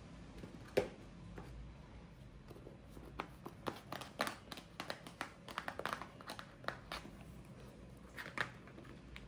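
Hands handling packaging and supplies on a desk: a sharp knock about a second in, then a run of light crinkles and clicks, with a few more near the end as a small black box is picked up.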